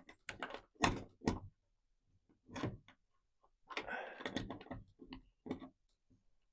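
Irregular light clicks and knocks of small metal hardware, a quick run of them about a second in and another cluster around four seconds in, as the mounting nut of a truck topper's replacement lock cylinder is snugged down.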